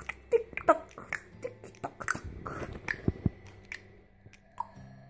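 Small plastic Lego pieces clicking and rattling as they are handled and sorted, a run of irregular sharp clicks that thins out in the second half.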